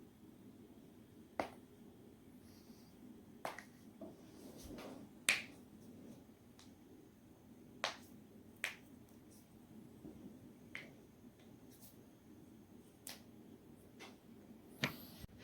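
Neck and back joints cracking: about nine sharp pops at irregular intervals, the loudest about five seconds in.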